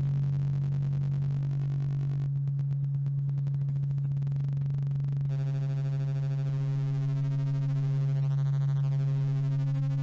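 Moog Model 15 synthesizer app: a steady low sine-wave tone whose level is modulated by a rectangular wave through the voltage-controlled amplifier, making a shifting pattern. Its tone colour changes as the rectangular wave's width is turned, and about five seconds in a richer stack of overtones comes in as the oscillator range is switched.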